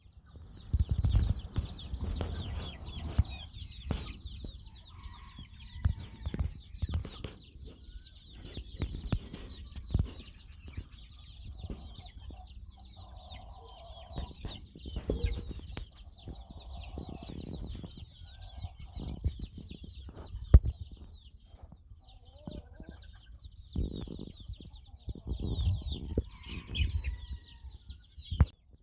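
A flock of young roosters calling together, with constant high peeping and chirping and lower clucks now and then. Short low thumps come and go.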